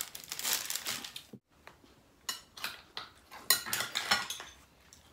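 Cutlery and dishes clinking at a meal table: spoons and forks tapping and scraping on ceramic plates and bowls in scattered short clinks.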